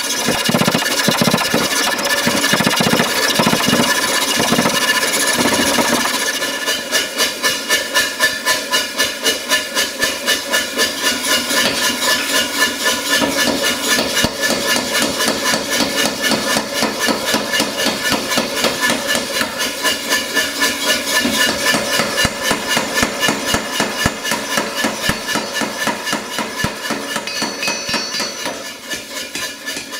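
Power hammer striking red-hot steel bar stock. It starts as a steadier, hissing run of blows, then from about six seconds in settles into a fast, even hammering rhythm.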